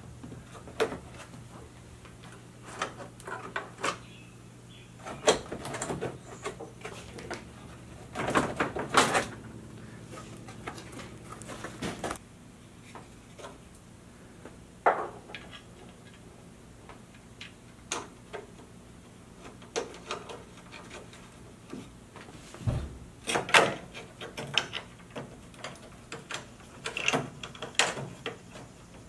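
Defroster ducts being worked loose and pulled out from under a car's dash top by hand: scattered clicks, knocks and scraping of plastic on metal, with a stretch of rubbing about eight seconds in and a few sharp knocks near the end.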